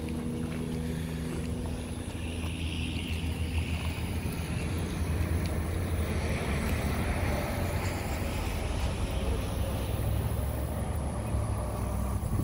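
Wind buffeting a phone's microphone outdoors: a steady low rumble, with a faint low hum in the first two seconds or so.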